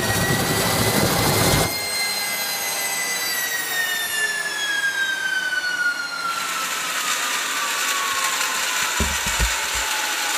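Small gas turbine engine shutting down. Its roar cuts out about a second and a half in, and the turbine whine then winds down, falling steadily in pitch as it spools down. A few low thumps come near the end.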